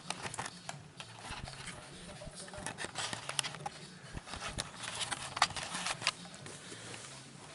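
Small Playmobil plastic pieces clicking and rattling as they are handled and pressed together: a run of scattered light taps, the sharpest about five and a half seconds in.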